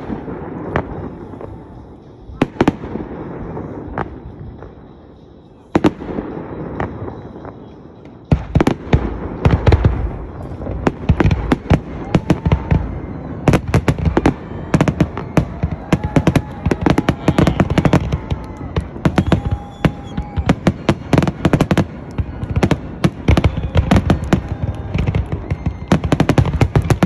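Aerial fireworks bursting: a few separate bangs, then from about eight seconds in a dense, rapid barrage of overlapping bangs and crackling.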